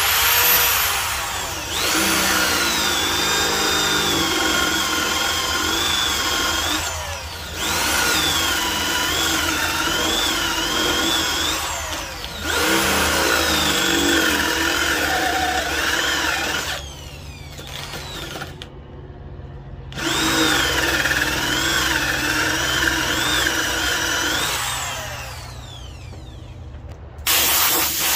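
Power drill boring into a wooden block with a Forstner bit, running in four long bursts and a short one near the end. Its whine wavers in pitch as the bit loads up in the wood.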